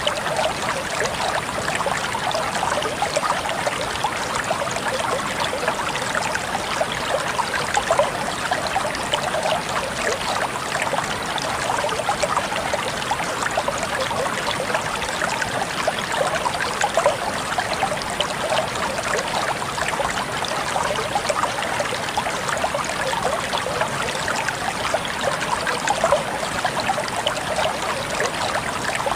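Water flowing steadily in a stream, with a continuous splashing trickle and no change in flow.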